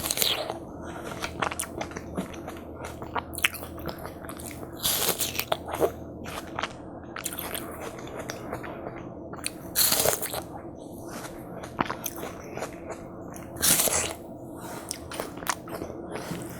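Close-miked eating of watermelon hwachae: crisp bites and wet chewing of watermelon, with scattered mouth clicks and a few louder bites or slurps about every four to five seconds.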